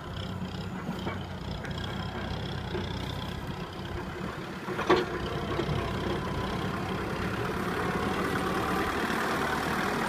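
Kubota tractor's diesel engine running steadily under load as it pulls a loaded trailer through mud, slowly growing louder. One sharp knock sounds about five seconds in.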